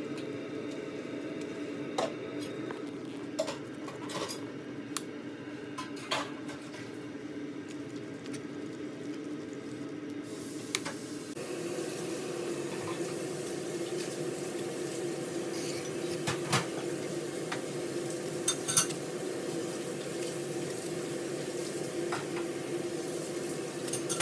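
A spatula stirring a thick, pasty cornstarch-and-coconut-milk pudding in a pot, with scattered clicks and knocks as it strikes the pot, over a steady low hum.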